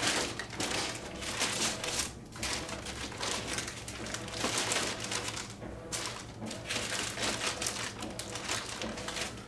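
Packaging being handled during an unboxing: irregular rustling and crinkling with light clicks and knocks.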